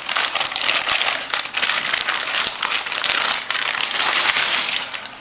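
Packaging being crinkled and crackled as it is handled, a dense run of quick crackles that eases off near the end.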